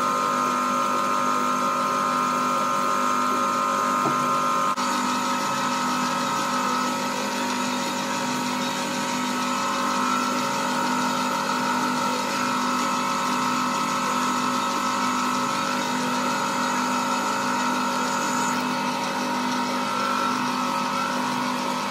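Metal lathe running with no cut being taken: a steady motor and gear whine over a low hum.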